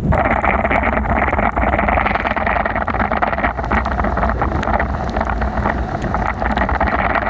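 Wind rumbling on the microphone during a bicycle ride in heavy rain. A steady hiss of water sets in suddenly at the start, with many small ticks running through it, like raindrops and spray hitting the bike and camera on a soaked road.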